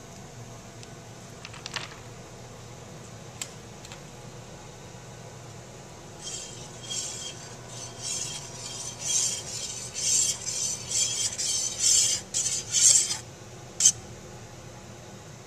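A metal spoon stirring and scraping around the inside of a stainless steel pot of thick wax gel glaze, in quick repeated strokes for about seven seconds, then a single sharp clink.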